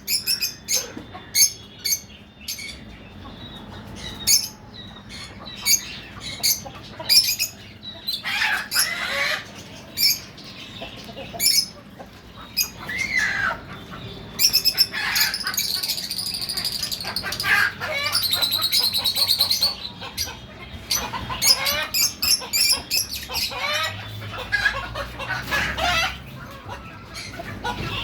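African lovebirds chattering: rapid shrill chirps and squawks, several birds overlapping, busiest in the second half.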